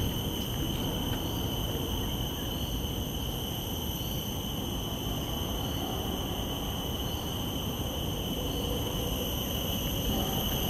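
Steady, high-pitched drone of insects, over a low steady background rumble.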